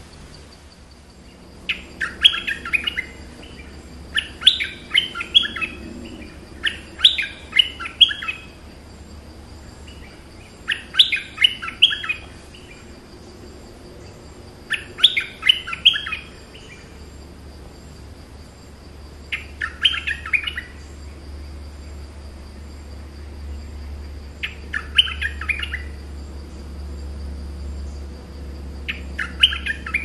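A caged นกดอกแตง (nok dok taeng) decoy songbird calling in short phrases of quick, high notes, each about a second long, repeated about eight times with pauses of a few seconds between. A faint steady high tone runs underneath.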